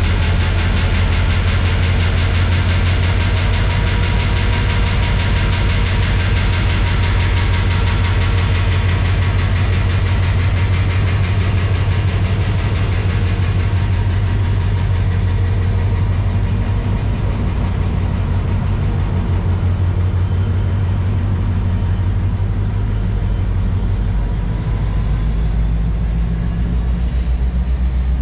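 Metrolink commuter train's diesel locomotive, pushing from the rear, running under load as the train pulls out and passes close by: a loud, steady deep rumble that eases somewhat in the second half as the train moves away.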